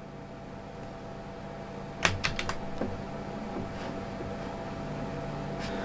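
A few quick clicks of a computer keyboard, bunched together about two seconds in, over a steady faint electrical hum.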